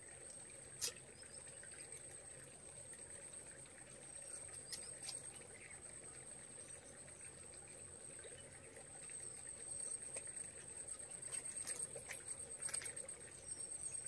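Faint, steady, high-pitched trill of insects, with a few soft clicks here and there.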